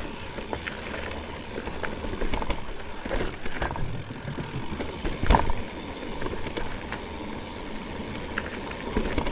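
Electric mountain bike ridden over rough ground: a steady rushing noise with scattered rattles and knocks from the bike, the loudest knock about five seconds in.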